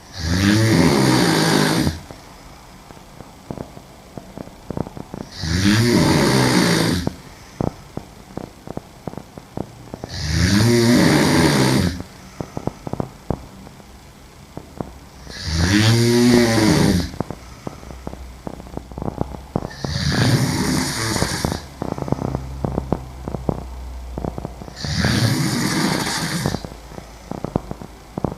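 A woman snoring loudly while asleep on her back: six long, pitched snores about every five seconds, each rising and falling in pitch, with faint clicks in the gaps between them.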